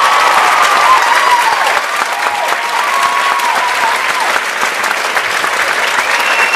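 Audience applauding and cheering after a song, with high whoops over the clapping, thickest in the first couple of seconds and again near the end.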